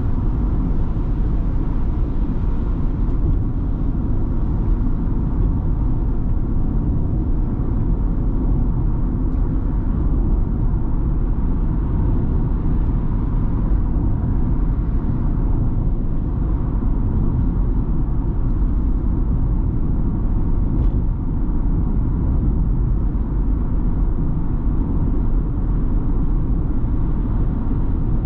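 Ford Transit Custom diesel van driving at a steady pace: a constant low rumble of engine and road noise that holds level throughout.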